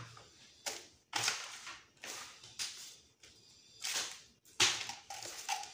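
Hands rummaging through craft tools and supplies: about six short bursts of clattering and rustling, a few seconds apart.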